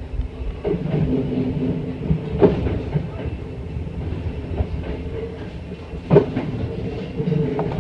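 Hankyu Railway electric train rolling slowly over pointwork, with a steady low hum from the running train. The wheels give light clicks throughout and two sharp clacks, about two and a half seconds and six seconds in, as they cross the switches.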